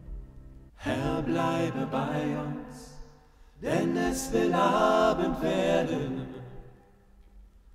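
Background music: slow a cappella chant, voices singing two long phrases, the first starting about a second in and the second about three and a half seconds in, fading out near the end.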